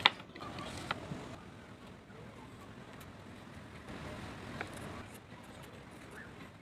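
A sharp click or knock right at the start, a smaller one about a second later and a faint tick near the middle, over low background noise.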